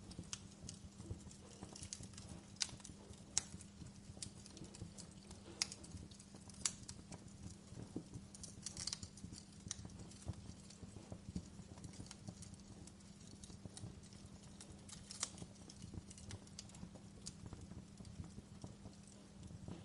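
Campfire burning, crackling with irregular sharp pops and snaps, a few of them louder, over a low steady rumble.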